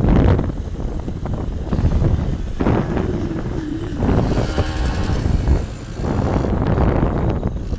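Wind buffeting the microphone over a motorcycle engine running on the move, in uneven gusts.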